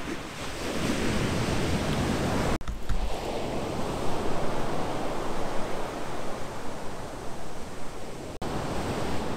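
Ocean surf breaking and washing up the beach, a steady rushing wash of waves. The sound cuts out briefly twice.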